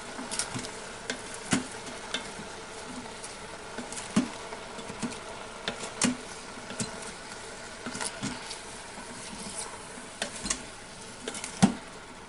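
Chicken and vegetable stir-fry sizzling in a pan while a utensil stirs it, with irregular sharp clicks and knocks against the pan, the loudest one near the end.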